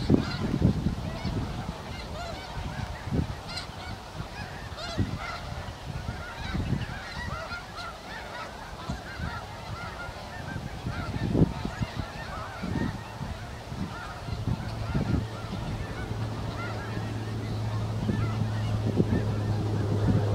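A large flock of snow geese calling, a dense, continuous chorus of overlapping honks. Low rumbles of wind on the microphone come and go, and a steady low hum joins about two-thirds of the way through.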